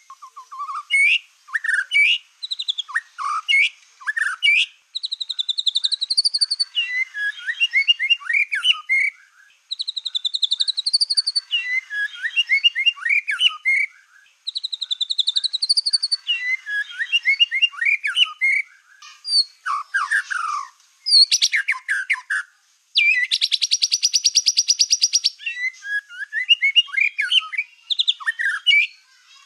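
Black-tailed white-rumped shama (murai batu) in full energetic song: a long varied string of phrases mixing rising whistled figures that recur every few seconds with quick chattering notes. About two-thirds of the way through it gives a dense, very rapid trill for roughly two seconds.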